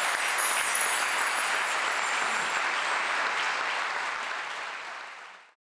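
Audience applauding, a steady wash of clapping that fades away and stops near the end.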